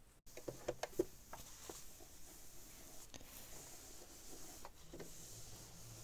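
Patchwork fabric handled and fed under a domestic sewing machine's presser foot: a few sharp clicks in the first second and a half, then soft rubbing of cloth, and a low steady hum of the machine running from about five seconds in.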